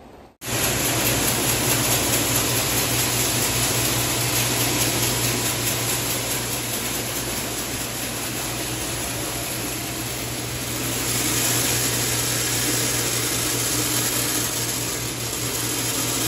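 Bean sorting (grading) machine running, a steady mechanical hum under a dense rush of soybeans pouring through its chutes into a woven sack. It starts suddenly about half a second in.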